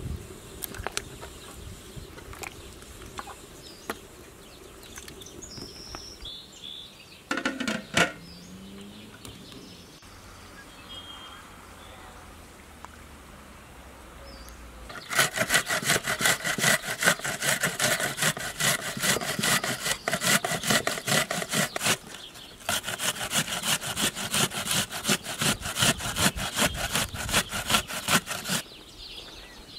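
A vegetable grated by hand on a metal box grater into a bowl: fast, even rasping strokes for about seven seconds, a one-second pause, then about six seconds more. Before that, faint bird chirps and one short loud call with a falling pitch.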